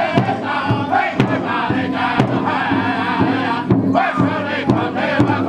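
Powwow drum group singing in unison, with several men's voices over a large bass drum that they strike together with padded beaters at about two beats a second.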